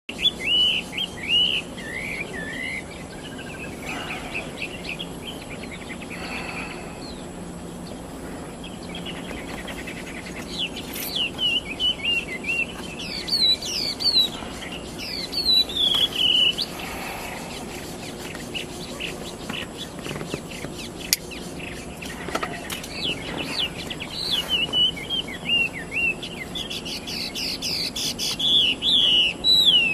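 White-rumped shama (murai batu) singing in bouts of quick, varied whistled phrases with many falling sweeps: a burst at the start, a longer run from about eleven to seventeen seconds in, and another near the end.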